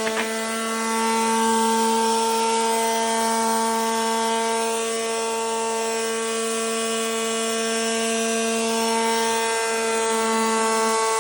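SKIL corded detail sander running steadily: an even buzzing hum with the hiss of the sandpaper pad working a surface, with a couple of light clicks at the very start.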